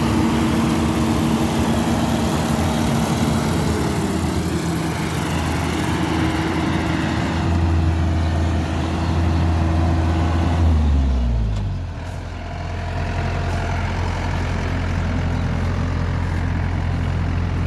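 Engine of a Yanmar rice combine harvester running steadily at working speed. About eleven seconds in, the revs drop over roughly a second and it settles into a lower, steady hum.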